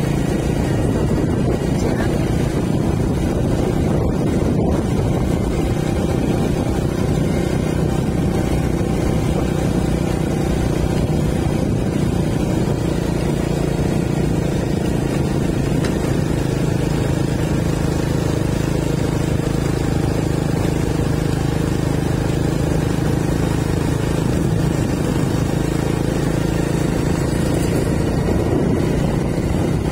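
Steady rumble of a moving vehicle's engine and road noise, a constant low drone without changes in pitch.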